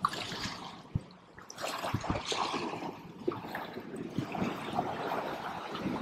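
Small waves washing and splashing against the rocks of a stone jetty, coming in uneven surges, with one short knock about a second in.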